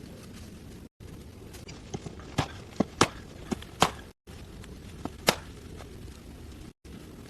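A series of sharp, irregular knocks and taps, about eight of them, bunched between two and four seconds in with two more a second later, over a steady low rumble of background noise that drops out briefly at a few points.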